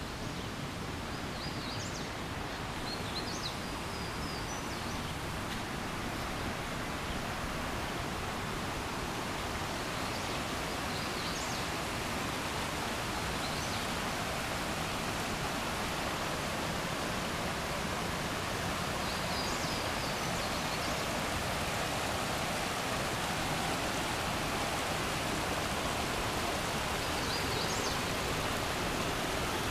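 Creek water rushing over rocks, a steady rush that grows a little louder, with a small bird's short high calls heard faintly several times.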